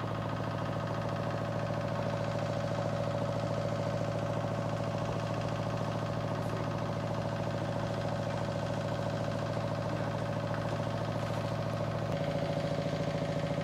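Engine idling with a steady, unchanging hum.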